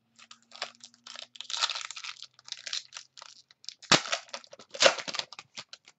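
Foil wrapper of a pack of football trading cards crinkling and being torn open by hand: an irregular crackle, with two louder crackles about four and five seconds in.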